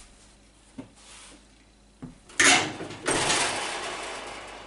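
Lower metal oven door of an old enamelled Wincroft gas cook stove being pulled open, after a few faint clicks: a sudden scraping clatter about halfway through, then a noisy rush that slowly fades.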